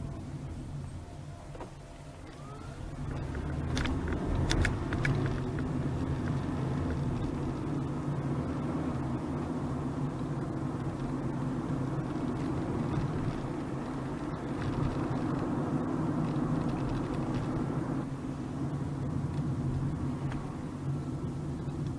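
Honda Freed Hybrid being driven: a steady low hum of engine and road noise that grows louder about three seconds in, with a few sharp knocks about four to five seconds in.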